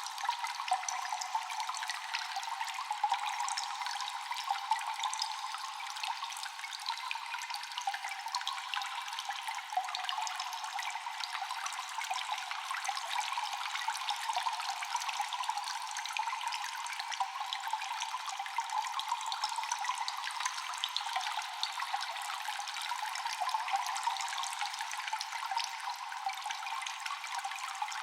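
Water dripping constantly in a cave, many drops falling at irregular intervals with an echo, over a steady rush of trickling water.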